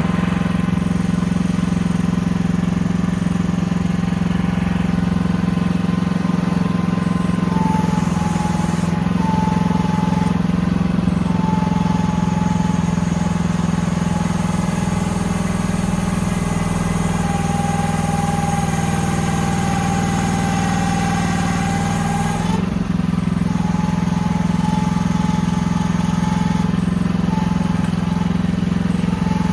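AGT QH12R mini excavator running steadily at working speed, with a whine that comes and goes and shifts slightly in pitch as the machine works.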